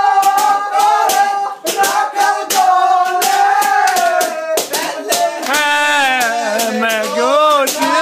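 Voices singing a Bengali Christmas kirtan, a devotional song, with steady rhythmic hand-clapping keeping time.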